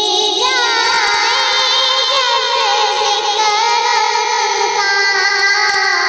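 A female voice singing a naat, an Urdu devotional poem in praise of the Prophet. The melody is made of long held notes with ornamented turns and slides.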